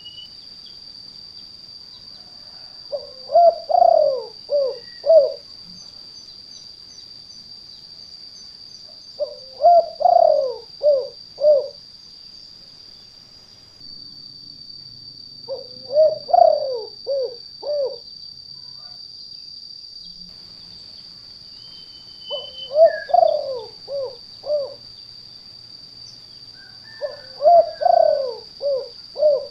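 Spotted dove (tekukur) cooing: five phrases of several quick notes each, about six seconds apart. A steady high-pitched hum runs underneath throughout.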